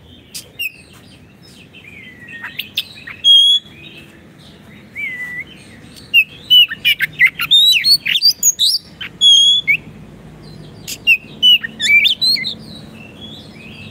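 Oriental magpie-robin (kacer) singing: clear whistled notes and varied phrases, with runs of quick rising and falling notes in the middle and again near the end.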